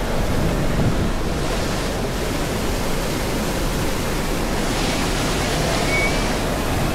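Rushing whitewater pouring through a stone-walled channel, a steady roar, with wind buffeting the microphone. The hiss grows brighter for a couple of seconds about five seconds in.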